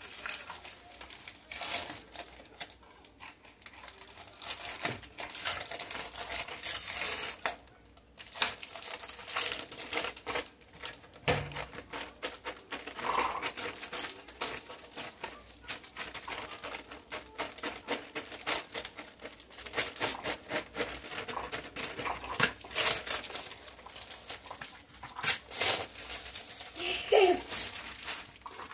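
Crinkling and rustling, dense with small clicks and taps, as something is handled by hand.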